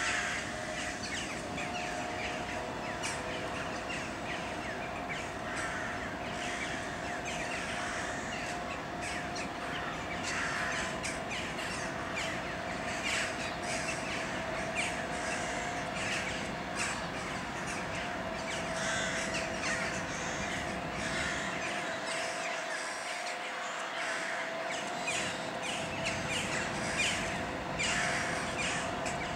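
A flock of birds perched on overhead wires calling constantly, with many short overlapping calls. Under the calls is a steady two-tone electrical hum.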